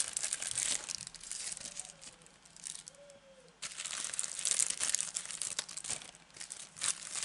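Thin clear plastic stamp sheets crinkling and crackling as they are handled and turned over. The crinkling eases off about two seconds in and starts again about a second and a half later.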